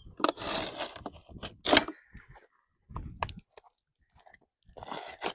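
A blade scoring through asphalt roof shingles along a marked line: a series of rough scraping, crunching strokes, the sharpest about two seconds in.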